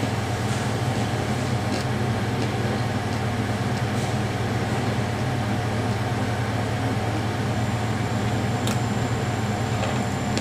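Electric fan running with a steady hum and whir, with a few faint clicks of someone chewing a sandwich.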